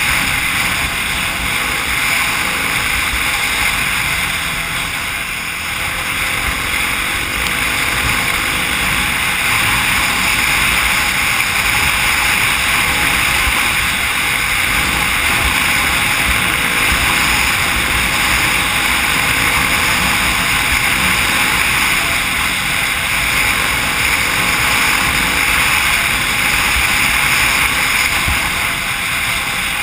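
Wind rushing over a helmet-mounted camera as a Kawasaki KLX300 dirt bike rides at speed, its engine running underneath, with a brief lull about five seconds in.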